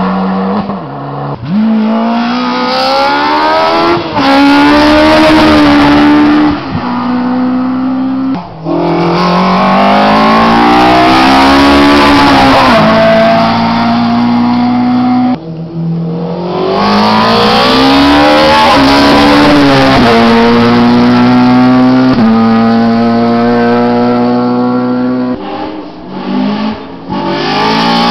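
Hill-climb race car engines at full throttle climbing the course, the revs rising and dropping sharply at each upshift, several shifts in a row. There is a short break about halfway through before the next car's engine comes up through its gears.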